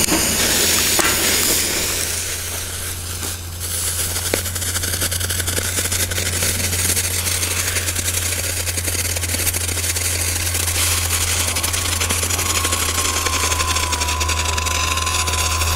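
Three strobe fireworks (Lesli Doggo Beat strobe pellets) burning at once: a dense, rapid crackling buzz of tiny pops, with a short dip in loudness about three seconds in.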